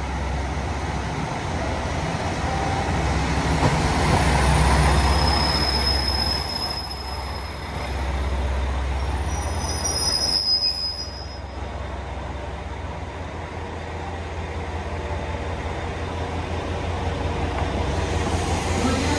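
Diesel train pulling into a platform and stopping. A low engine drone runs throughout, the loudest part comes about four to five seconds in, and high steady squeals sound from about six to eleven seconds in as it brakes. After that the engine idles with a steady hum.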